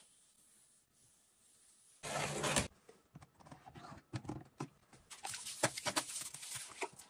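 A plastic packet of toilet-bowl cleaner being handled in a toilet bowl: crinkling with scattered clicks and crackles that grow denser toward the end. A short, louder burst of rustling comes about two seconds in.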